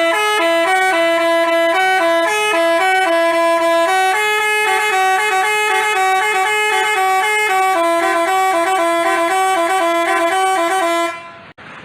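Telolet basuri bus horn playing a quick tune of short notes that step up and down in pitch. It cuts off sharply near the end.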